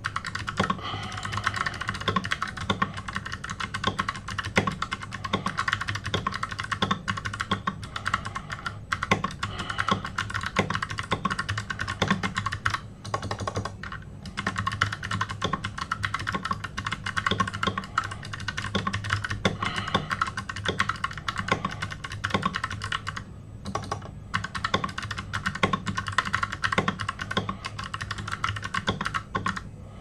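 Computer keyboard typed on rapidly and continuously during a speed-typing test: a fast, uneven stream of key clicks, with brief pauses about 13 and 23 seconds in.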